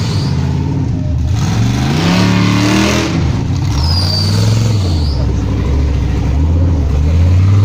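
Off-road competition 4x4's engine revving hard, its pitch rising and falling several times as it is worked through an obstacle. A brief high whine comes in about four seconds in.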